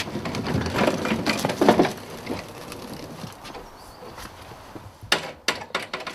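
Scraping and clattering as heavy metal voltage regulator units are shifted about by hand, then a few sharp knocks about five seconds in.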